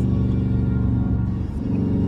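Dodge Charger engine running while driving, a steady low rumble with a brief dip and change in pitch about a second and a half in, mixed with music playing.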